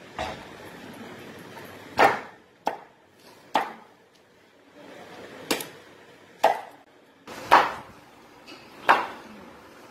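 A large curved chopping knife striking raw green mangoes against a wooden block, cutting them into pieces for pickle: about eight sharp chops at irregular intervals, roughly one every second.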